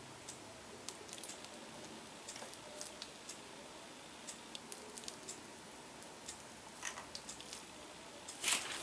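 Tiny metal cake knife cutting through a miniature crepe cake, giving scattered soft ticks and clicks as the blade presses through the layers and touches the plate, with a louder scrape near the end.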